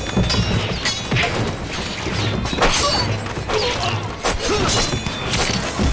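Martial-arts fight sound effects: a quick run of hits, thuds and swishes, roughly one a second or faster, over background music.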